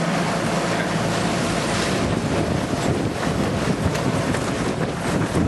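Riding lawnmower engine running while the trailer it tows rattles and jolts over rough ground, with wind on the microphone. About half a second in, the engine's steady hum fades under a dense clatter of knocks.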